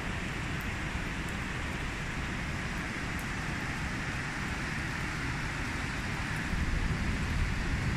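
Steady hiss of rain falling, with faint drop ticks, and a low rumble building near the end.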